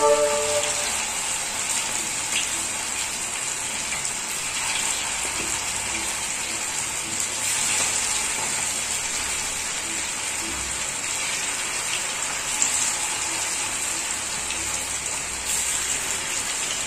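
Marinated chicken 65 pieces deep-frying in hot oil in a pan: a steady sizzling hiss that swells briefly a few times.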